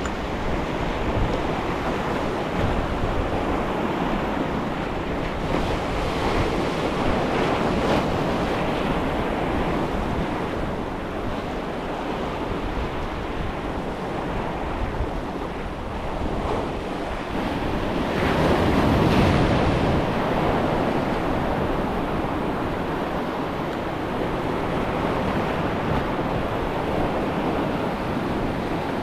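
Sea surf breaking and washing over a rocky shore, with wind buffeting the microphone. A bigger wave surges in about two-thirds of the way through.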